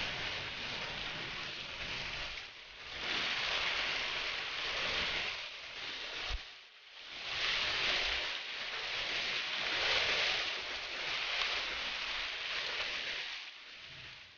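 Torrential thunderstorm rain driven by gusting wind, a heavy hiss that swells and eases in waves and drops away briefly three times.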